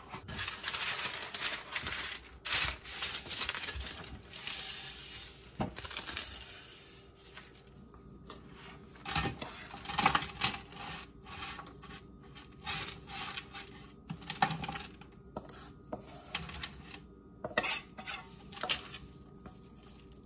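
Parchment paper rustling as it is laid into a metal sheet pan, then a granola mixture tipped out of a stainless steel bowl onto the paper and scraped out with a metal spoon, with clinks and scrapes of spoon on bowl.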